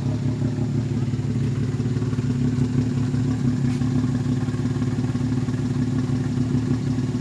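Turbocharged Perodua Viva three-cylinder engine running steadily at idle, an even low drone that neither rises nor falls.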